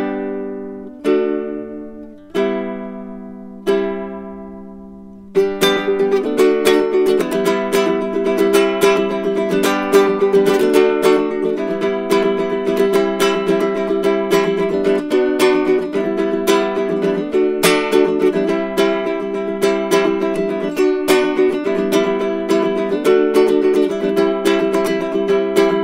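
Baritone ukulele music: a few slow chords left to ring out and fade, then from about five seconds in a steady, quicker run of plucked notes.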